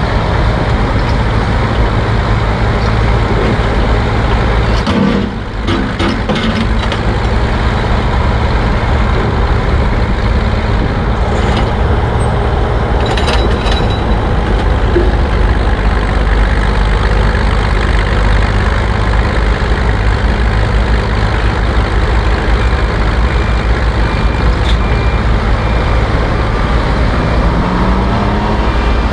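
Vintage Northwest cable-operated crawler shovel working: its engine runs loudly and steadily under load as the dipper digs into the dirt pile and swings, with a few short clanks from the machinery about five seconds in and again around thirteen seconds.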